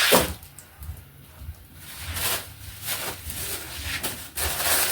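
Groceries being handled: a loud rustle at the start, then a few short, quieter rustles and knocks as packaged items are taken out of a shopping bag.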